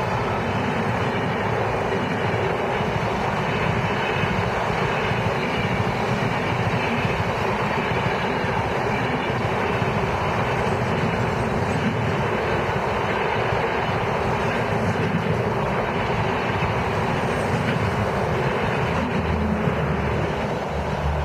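Passenger train's LHB coaches rolling past close by on the adjacent track: a steady, loud rumble of wheels on rail. Near the end a low steady hum joins in as an ICF coach passes close.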